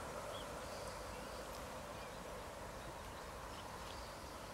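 Faint outdoor background: a steady distant hum, with a few faint short chirps now and then.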